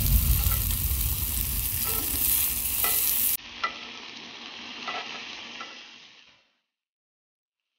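Flour-coated chicken breast strips sizzling in a hot grill pan, a steady frying hiss with a few light clicks. The sizzle drops sharply about three and a half seconds in and fades out, leaving silence near the end.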